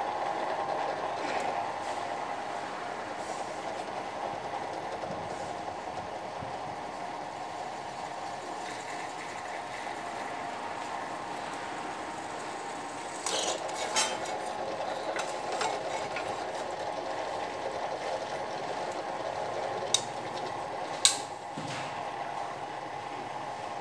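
Bench drill press motor running steadily while its bit drills holes through a thin metal plate, with a few sharp metallic clicks and scrapes as the bit bites, the loudest two about 20 and 21 seconds in.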